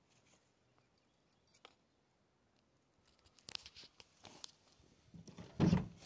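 Quiet at first, then from about three seconds in a run of short crackles and rustles of footsteps and handling, with a louder muffled thump near the end.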